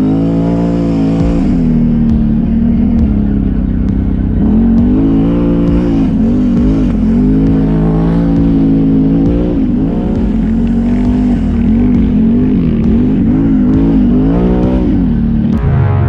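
ATV engine running under way, its pitch rising and falling over and over as the throttle is opened and eased off.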